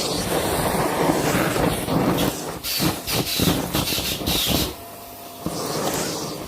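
Vacuum cleaner running, its suction hiss rising and falling unevenly, dropping lower for about half a second around five seconds in.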